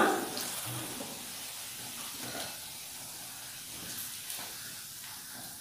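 Plantain slices sizzling in hot oil in a frying pan, a steady hiss with a few faint clicks.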